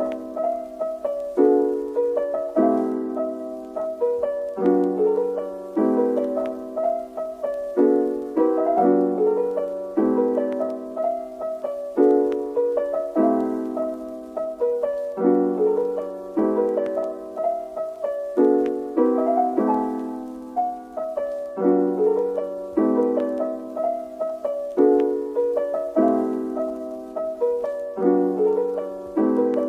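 Background music: a gentle piano melody with notes struck at an even pace that ring and fade, repeating the same short phrase.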